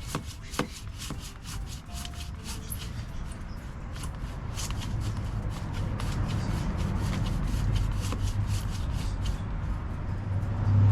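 Hand saw cutting through a plum tree branch, a long run of quick, even back-and-forth strokes. A low hum grows in under it from about halfway.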